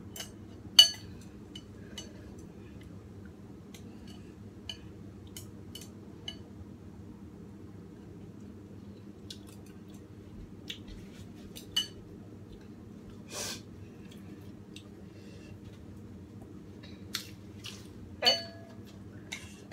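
Chopsticks and a spoon clinking now and then against a large bowl of noodle soup, with a few louder clinks, one about a second in and one near the end, over a faint steady low hum.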